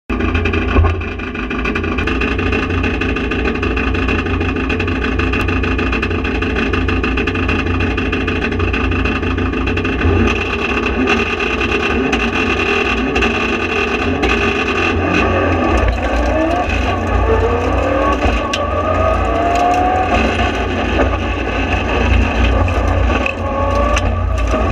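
Mitsubishi Lancer Evo rally car's turbocharged four-cylinder engine heard from inside the cabin, a loud steady low drone. From about fifteen seconds in, the engine note rises and falls again and again as the car accelerates and shifts.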